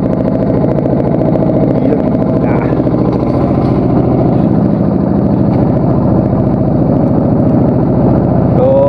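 Small fishing boat's engine running steadily under way, loud and close.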